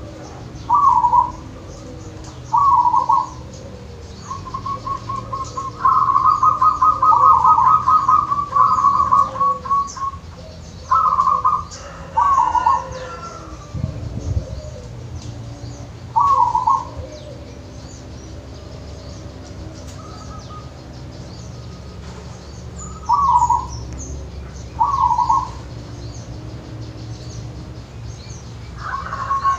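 Zebra dove (perkutut) cooing: short burry coos repeated every couple of seconds, with a long rapid run of staccato notes from about six to ten seconds in and another run starting near the end. There is a single low thud near the middle, and faint high chirps of small birds in the background.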